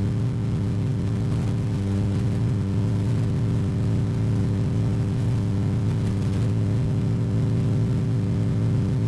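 Light aircraft's engine and propeller droning steadily in cruise, heard from inside the cockpit as an even, unchanging hum.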